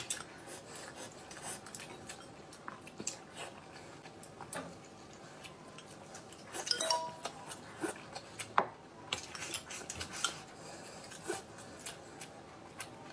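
Chopsticks clicking and clinking against glass rice bowls and ceramic plates during a meal, in small scattered taps. One clink rings briefly about seven seconds in.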